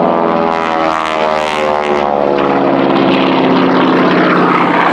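Radial-engined propeller warbird passing, its engine drone falling in pitch over the first couple of seconds and turning into a louder, harsh propeller rasp.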